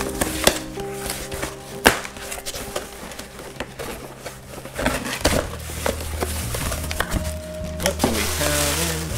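Background music with a steady run of held notes, over sharp clicks and knocks of a package being handled and opened.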